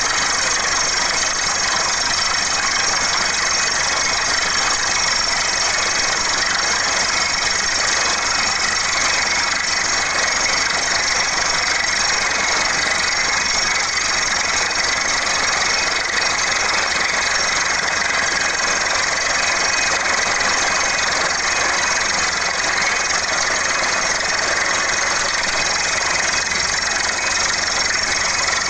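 Crawler-mounted water-well drilling rig running: steady, unbroken engine noise at a constant level.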